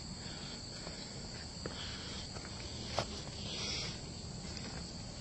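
Steady high-pitched drone of a summer insect chorus, with a few footsteps on the trestle, the sharpest about three seconds in.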